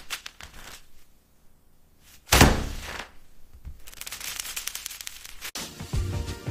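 A single loud thump a little over two seconds in, followed by a short hissing noise.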